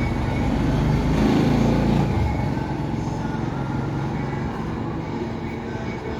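Low engine rumble of a passing vehicle, swelling about a second in and easing after about two seconds.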